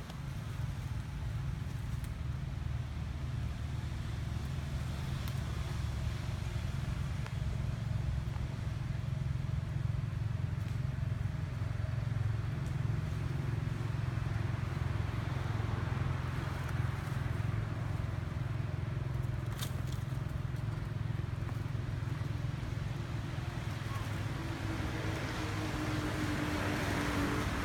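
Steady low rumble of outdoor background noise, with a faint droning tone that comes in near the end.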